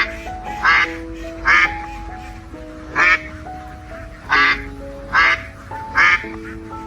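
A duck quacking: about seven short single quacks, a second or so apart, over background music made of held notes.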